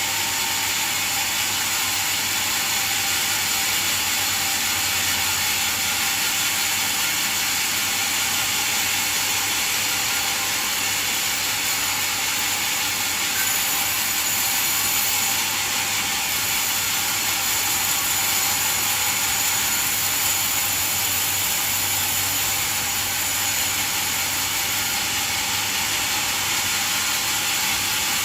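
Band sawmill running and sawing a coconut log: a steady, unbroken mechanical noise, mostly high-pitched, with a thin high whine over it.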